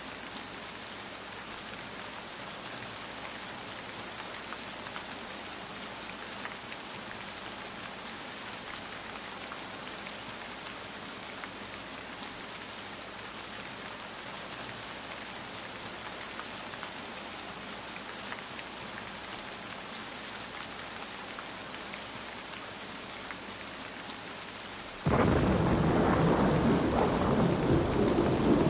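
Steady rain falling, with a loud rumble of thunder breaking in suddenly near the end and carrying on.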